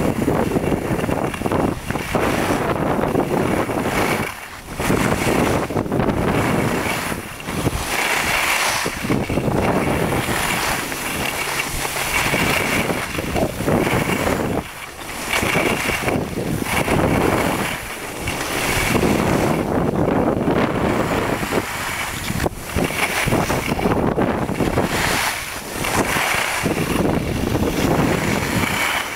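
Wind rushing over the microphone of a camera carried by a moving skier, gusting with brief lulls, mixed with the hiss of skis sliding over packed snow.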